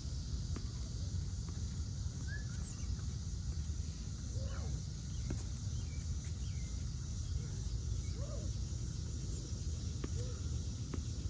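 Outdoor ambience: a steady low rumble under a constant high insect hiss, with a few short bird chirps scattered through.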